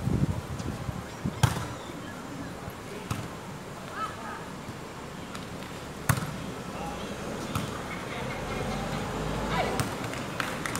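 A volleyball being struck during play: a few sharp slaps of hands and arms on the ball, several seconds apart, the loudest about a second and a half in and about six seconds in.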